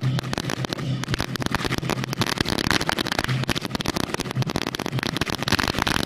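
Strings of firecrackers going off in a dense, continuous crackle of rapid bangs.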